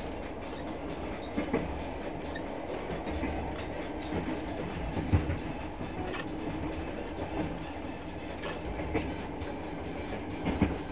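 Long-distance passenger train carriage rolling along the track, heard from inside: a steady rumble with scattered, irregular wheel clacks over the rail joints.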